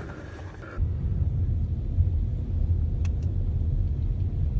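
A steady low rumble that starts suddenly about a second in, after a short stretch of quieter windy hiss.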